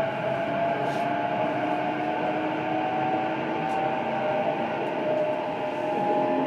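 Interior running sound of a JR East E233 series electric train, recorded inside a motor car: steady wheel-and-rail rumble with a whine of several tones from the traction motor drive that slowly rises in pitch.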